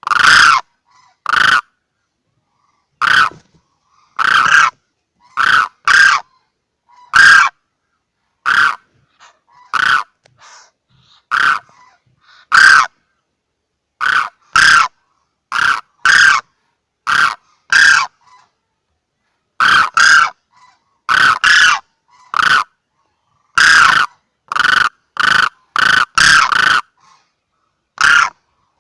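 Crane calls from a hunting lure recording: short, loud honking calls repeated at irregular intervals, sometimes in quick pairs, with dead silence between them.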